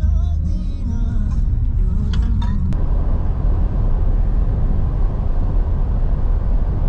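Steady low rumble of a car driving on the road, with faint voices and music in the first couple of seconds. Nearly three seconds in, the sound changes abruptly to a rougher, hissier road noise.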